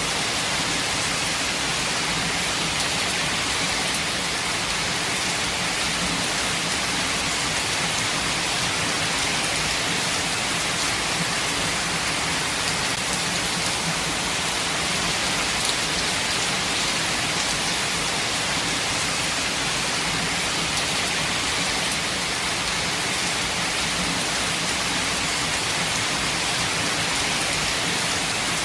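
Steady rain falling: an even, unbroken hiss of drops that holds at the same strength throughout.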